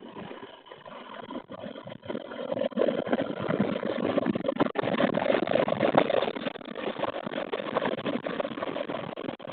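Motorcycle on the move: engine running with wind rushing over the microphone, the whole growing louder about two and a half seconds in and staying loud.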